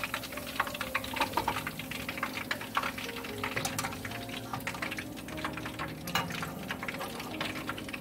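Meatballs frying in hot oil in a pan: a dense, steady crackle and sizzle. Background music with held notes plays underneath.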